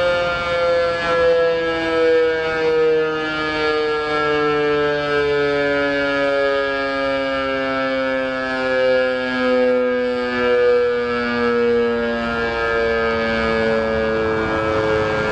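DS977 electromechanical alarm siren sounding two tones together that slowly slide down in pitch as it winds down. Its loudness swells and fades every second or so.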